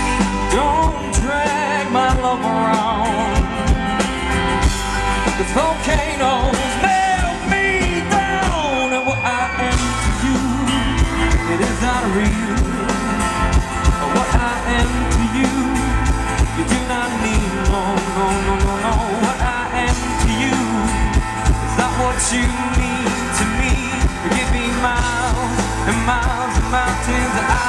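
Live music: a male voice singing a slow, wavering melody over strummed acoustic guitar with band accompaniment.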